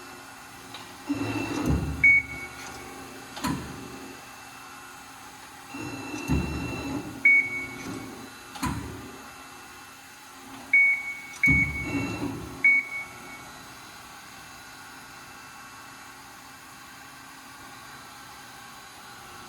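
Amada RG-50 hydraulic CNC press brake being operated: short high electronic beeps, sharp clicks, and several low surges of machine noise about a second long. Near the end of this activity it settles into a steady hum.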